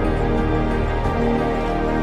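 Background music: sustained chords over a low bass, shifting about once a second.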